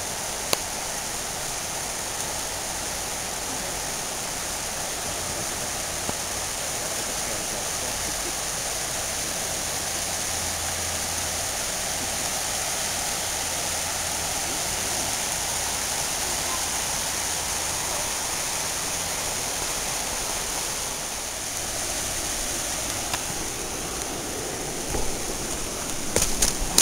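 River water rushing steadily over rocks in shallow rapids. A few knocks come near the end.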